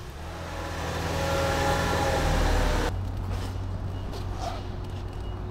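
Toyota Hiace van's engine revving, its pitch rising steadily for about three seconds, then settling to a steady low idle.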